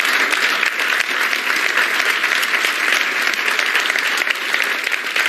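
Studio audience applauding, a steady patter of many hands clapping.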